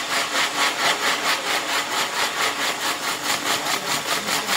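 Fireworks on a castillo firework tower burning: a loud rushing hiss that pulses evenly about six or seven times a second, like a spinning firework wheel throwing out sparks.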